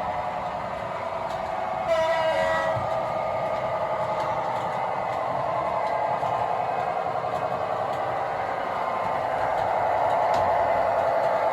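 Sound decoder of a model diesel locomotive playing a running diesel engine, with a short horn sounding about two seconds in, its pitch stepping down. The engine sound grows a little louder near the end.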